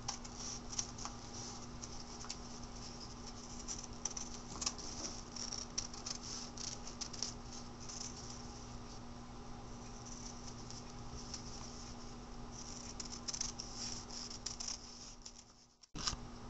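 Scissors snipping through a paper foundation pattern and quilt fabric, trimming a paper-pieced block: a dense run of small crisp cuts and paper crackles. They stop shortly before the end.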